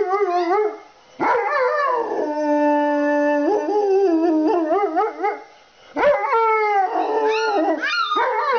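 Doberman howling with its head raised, in long drawn-out howls. Some are held on one steady pitch and others waver or fall away, with brief breaks about a second in and again around five and a half seconds.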